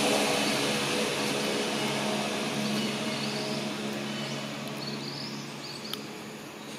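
A vehicle's engine hum fading steadily as it moves away, with short high bird chirps coming through as it dies down.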